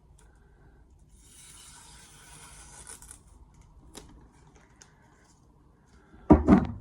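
Handling sounds at a workbench: a rustling, rubbing noise for a couple of seconds, a sharp click about four seconds in, then a loud thump near the end as something is set down.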